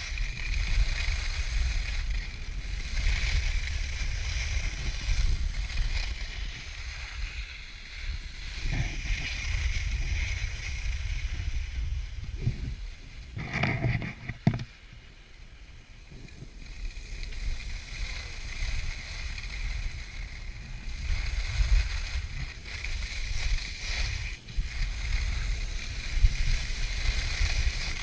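Skis hissing and scraping over packed snow on a fast downhill run, with wind rumbling on the body-worn camera's microphone. A brief louder noise comes just before the middle, then the sound is quieter for several seconds before it picks up again.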